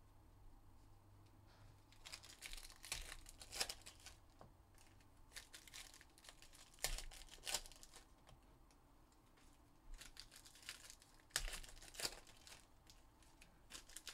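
Foil trading-card pack wrappers crinkling and tearing as the packs are handled and opened, in several short crackly bursts with quiet stretches between.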